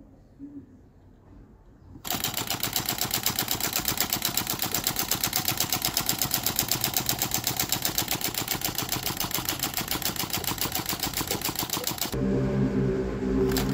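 Homemade Stirling engine made from aluminium drink cans, running on heat from a solar reflector dish with a fast, even mechanical clatter that starts abruptly about two seconds in. A low steady hum joins it near the end.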